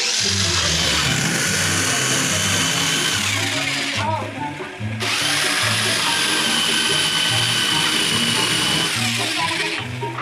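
A corded electric power tool runs at steady speed in a plywood board with a high motor whine. It stops for about a second some four seconds in, then runs again, stopping just before the end. Background music with a bass line plays underneath.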